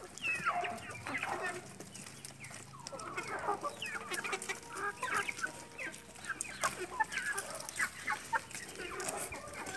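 A flock of chickens clucking while they feed, many short overlapping calls one after another, with scattered small clicks among them.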